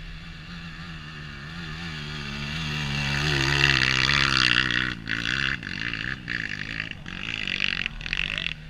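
Off-road dirt bike engine revving hard on a steep hill climb. The engine note builds over the first few seconds, then breaks into short throttle bursts with brief cuts between them, and drops away just before the end.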